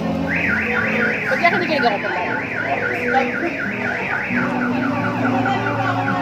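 Electronic siren warbling: a quick rising sweep repeated about four times a second, growing fainter after about three seconds.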